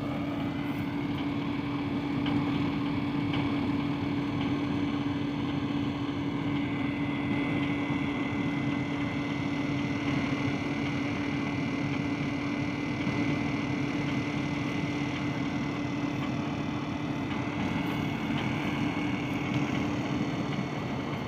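Diesel locomotive idling at standstill: a steady engine hum with a constant higher whine over it.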